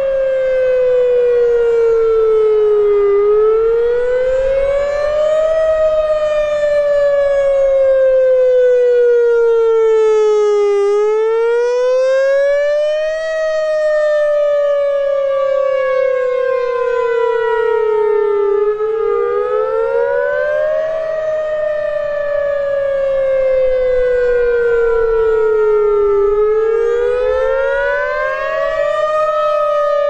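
Whelen WPS 3016 electronic outdoor warning siren sounding a wail on a siren test: one loud tone that rises over a couple of seconds, then falls slowly, the cycle repeating about every seven to eight seconds while its speaker head rotates.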